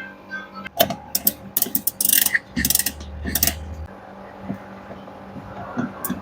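Metal clicks, knocks and a short ratcheting rasp as a V-belt pulley is fitted onto a twin-tub washing machine's gearbox, clustered in the first three and a half seconds, then a few quieter knocks.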